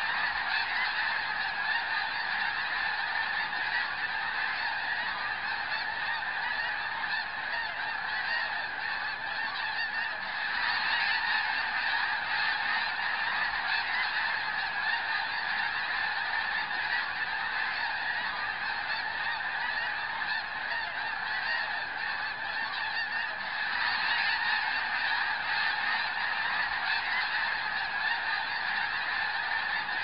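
A huge flock of snow geese calling overhead: a dense, unbroken clamour of many overlapping honks and yelps. It swells louder twice, about a third of the way in and again past the three-quarter mark.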